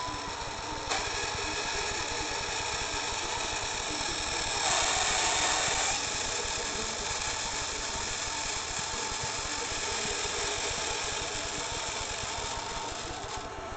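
iRobot Roomba 5210 robot vacuum running with a steady mechanical whir and a constant high whine, the noise the owner takes as a sign it is not working properly. There is a short knock about a second in, and the sound grows louder and hissier for about a second around five seconds in.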